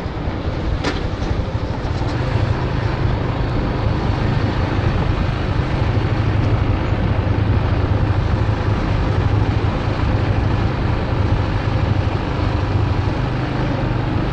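Vehicle engine and road noise while driving slowly past a line of parked trucks: a steady low engine drone under even rushing noise, with one short click about a second in.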